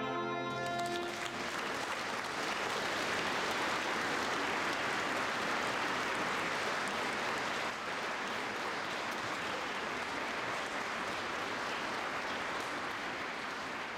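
A wind band's final held chord of brass, saxophone and clarinets cuts off about a second in. Audience applause follows, steady, then easing off near the end.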